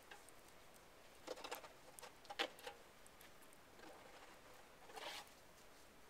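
Faint scraping of a hand tool pushing heavy snow off the edge of a house roof: a few short scrapes about a second in, the loudest around two and a half seconds, and another near five seconds.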